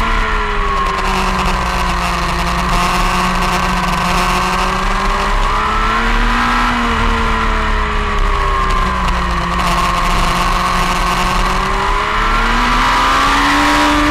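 Motorcycle engine heard from on board at speed on a race track, its pitch falling at first, rising about six seconds in, dropping again, and climbing once more near the end as the revs change through the corners. Wind rushes steadily over the microphone throughout.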